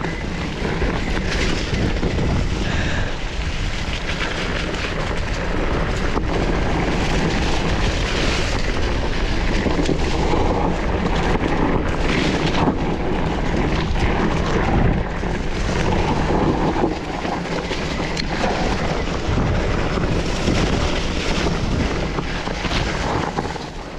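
Waterfall: a steady rush of falling water with a low rumble beneath it.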